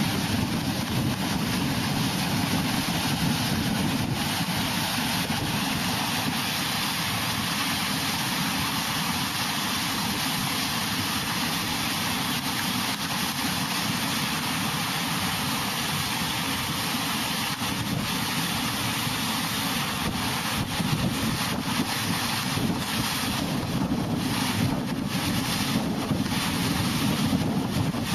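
Floodwater rushing out of a concrete culvert and churning into whitewater across a rock-lined channel, a steady roar with wind buffeting the microphone.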